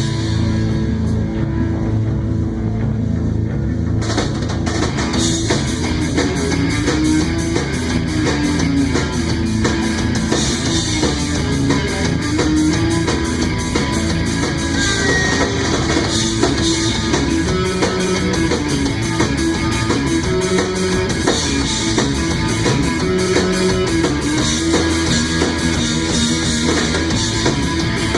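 Live rock band of electric guitar, bass guitar and drum kit playing an instrumental passage without vocals. The cymbals come in about four seconds in, over a moving bass line.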